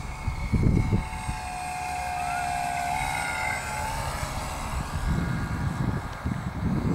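Electric brushless motor and 15-inch propeller of a radio-controlled flying wing whining in flight; the pitch steps up about three seconds in, then the whine fades away. Wind rumbles on the microphone in gusts.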